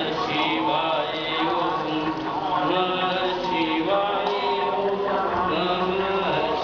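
Hindu devotional chanting: voices singing a mantra to a melody that rises and falls without a break.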